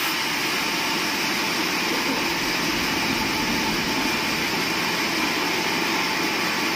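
Large sawmill band saw running steadily, its blade and drive making a loud, even machine noise.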